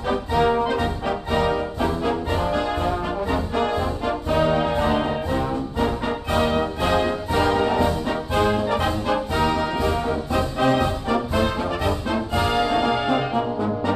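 Background orchestral music led by brass, playing sustained chords that change on a steady beat.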